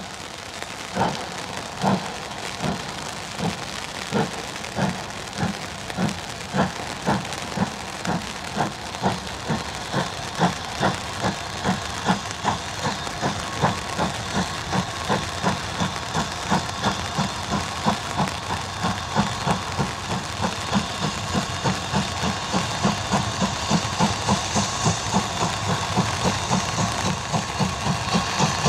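Steam locomotive pulling away from a standstill, its exhaust beats slow at first, about one a second, and quickening to about three a second while growing louder as it gathers speed.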